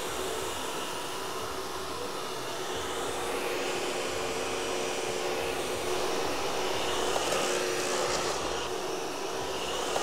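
Miele Triflex HX1 cordless stick vacuum running steadily, its motorised brush head pushed back and forth over low-pile carpet: an even motor whine and airflow, a little louder in the second half.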